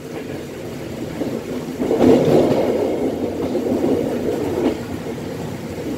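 A passenger train running at about 40 km/h, its wheels rumbling steadily on the rails and getting louder about two seconds in. A few clacks come as the train passes over the points.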